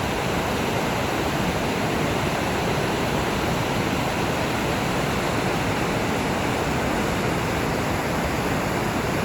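Loud, steady rush of the rain-swollen Arno River's water at the old mill.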